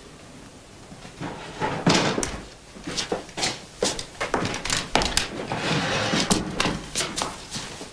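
Footsteps of several people on a wooden floor, irregular knocks and scuffs that start about a second in and then keep coming at several a second.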